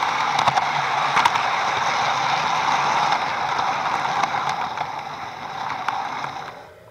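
HO-scale model train rolling along the track, a steady whirring rattle of wheels and motor with occasional clicks. It stops suddenly about six and a half seconds in.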